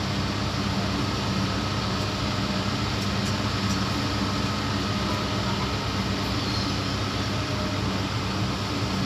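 Engine of heavy road-repair machinery running steadily, a constant low hum over an even hiss.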